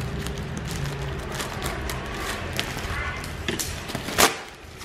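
Black plastic parcel wrapping crinkling and crackling as it is cut with scissors and pulled open by hand, with many small crackles and one loud sharp crackle about four seconds in.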